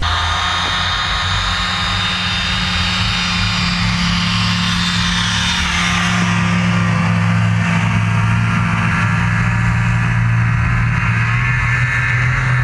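Off-road vehicle engine running steadily, a low even hum with fainter higher tones over it, as the machine drives across snow-covered ice.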